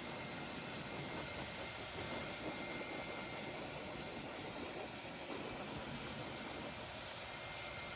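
Steady rushing noise of strongly blowing air, with an unsteady low rumble and a faint steady high tone.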